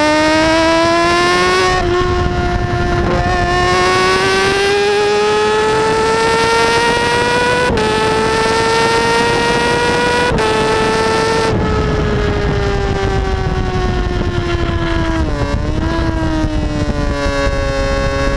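Kawasaki ZX6R's inline-four engine under hard acceleration, rising in pitch with quick upshifts about eight and ten seconds in. About twelve seconds in the throttle closes and the engine note falls steadily as the bike slows, with a brief dip in pitch near the end, over steady wind rush.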